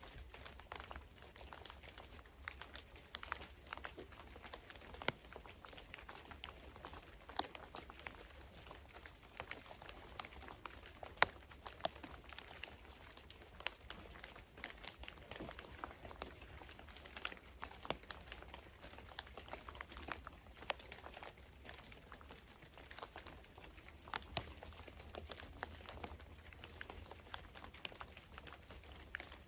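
Faint, irregular pattering of water drops, several sharp little ticks a second, over a low steady hum.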